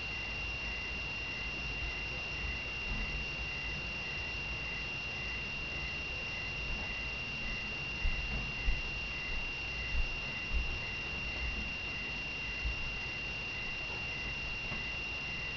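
A steady high-pitched tone with a fainter tone pulsing about twice a second just below it, over a low hiss, with a few soft low thumps about halfway through.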